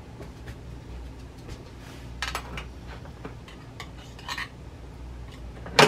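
Metal kitchenware clinking around a small stainless pan on the stove: a few light clinks about two and four seconds in, then one sharper, louder knock near the end, over a low steady hum.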